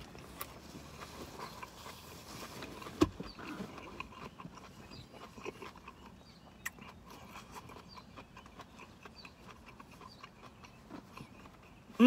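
Faint close-up mouth sounds of a person chewing a mouthful of food, with scattered small wet clicks and one sharper click about three seconds in.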